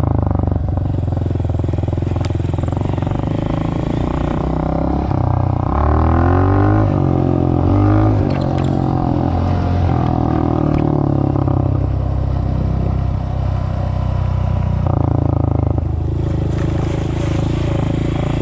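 Engine of a small off-road riding vehicle running under way, its pitch swinging up and down as the throttle is worked about six to eleven seconds in.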